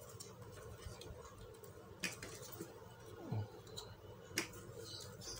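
Faint scattered clicks and taps of plastic laptop casing parts being handled and pressed into place, with two sharper clicks about two seconds and four and a half seconds in.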